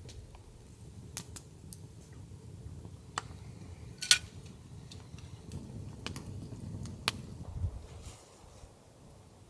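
Campfire crackling: sparse sharp pops, the loudest about four seconds in, over a low rumble that swells in the middle.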